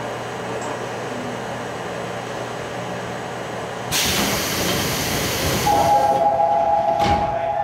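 Standing Seoul Metro 2000-series subway car: low steady interior hum, then about four seconds in a sudden loud hiss of released air. A steady high buzzer tone starts just before the hiss dies away and runs on, with a single knock near the end.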